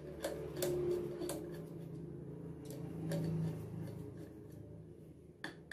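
Light metal clicks and ticks of a long screwdriver working the faceplate screws on the head of a Baoyu single-needle industrial sewing machine, coming unevenly every half second or so, over a low steady hum.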